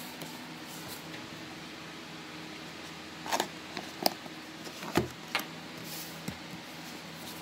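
Cardboard camera box being handled and its end flap worked open: a scrape about three seconds in, then a few sharp taps and a knock against the box, over a low steady hum.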